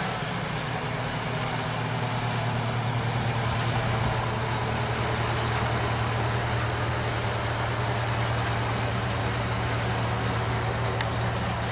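Engines of a small yellow rail tractor and a rail-mounted Hitachi mini excavator running steadily with a low hum as the machines travel slowly along the track.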